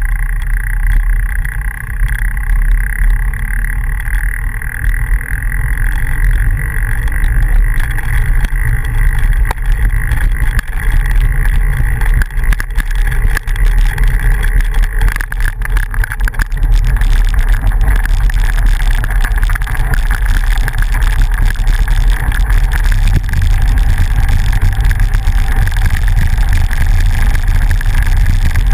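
Bicycle riding over a gravel road, heard through a bike-mounted action camera: a loud, steady low rumble of wind and road vibration, with a stretch of rattling knocks from bumps about halfway through.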